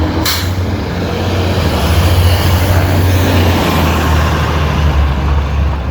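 City street traffic: a motor vehicle passing close with a deep, loud rumble that swells about two seconds in and stays strong to near the end, a short click just after the start.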